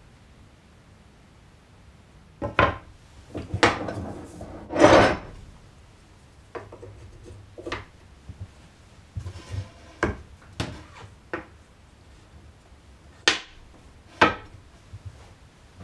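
Wooden knocks and clunks as a board and bench fittings are handled and set in place on a hardwood workbench. A few quick clatters and a longer sliding rub come in the first five seconds, then single sharp knocks about a second apart.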